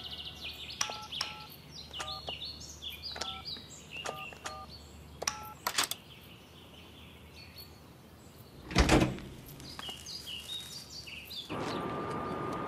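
Electronic door keypad beeping as a code is punched in: a string of short beeps, one per button press, over birds chirping. A click about six seconds in and a loud thud of the door around nine seconds, then a steady street hum near the end.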